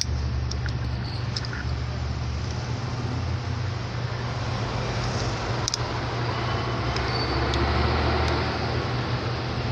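Steady low rumble with an even hiss, with a few faint clicks.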